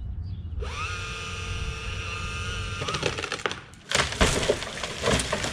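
Chainsaw revving up and cutting at full throttle for about two seconds, then dropping off. About a second later comes a loud crack and crash of wood as the cut piece breaks away and comes down.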